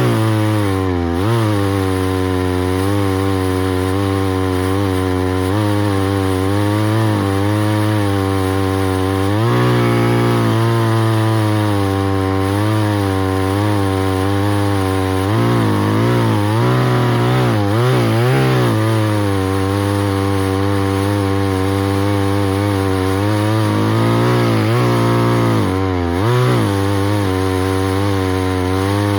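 Chainsaw mill ripping a log lengthwise, the saw's engine held at full throttle with a steady high pitch that dips and wavers briefly a few times as the chain loads up in the cut.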